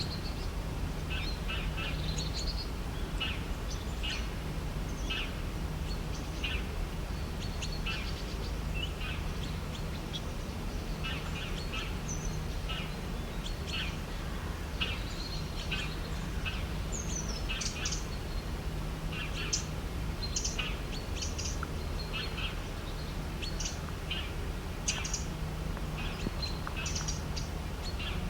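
Several birds chirping and singing in a morning chorus, short calls and trills overlapping, over a steady low rumble of background noise.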